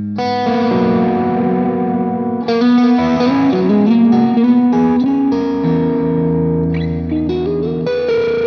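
Electric guitar playing sustained chords and melodic lines through a clean amp tone with an overdrive pedal giving a soft crunch.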